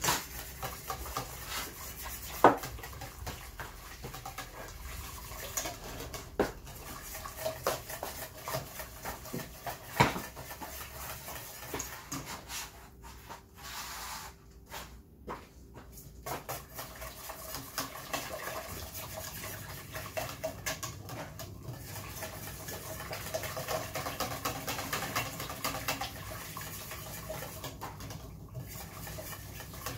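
Wire balloon whisk stirring thick béchamel white sauce in a stainless steel pot, scraping and clicking against the metal, with a few sharper knocks of the whisk on the pot.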